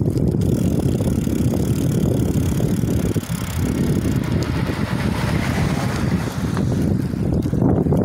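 Wind buffeting the microphone of a handlebar-mounted phone on a moving bicycle: a dense, steady low rumble, mixed with road noise from a Soviet KhVZ Sputnik bicycle rolling over wet asphalt.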